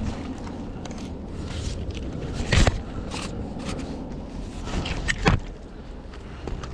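Low rumbling wind noise on the microphone, with two short, loud scraping knocks, one about two and a half seconds in and another about five seconds in.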